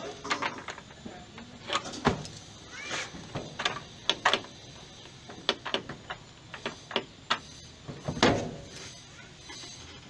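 Irregular plastic clicks and knocks from the control-panel console of an LG TurboDrum top-load washing machine being worked loose with a screwdriver, with a couple of short squeaks among them.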